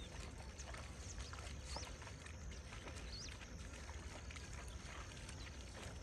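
Water buffalo wading through shallow water: faint, irregular splashing footsteps, with a few short bird chirps and a steady low rumble underneath.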